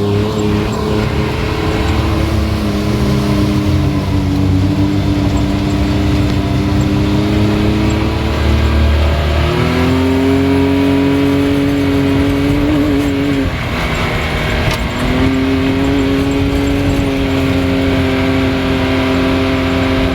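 Can-Am Maverick X3's turbocharged three-cylinder engine running under load while driving off-road, its pitch held steady, stepping up about halfway through, easing off briefly and then pulling again.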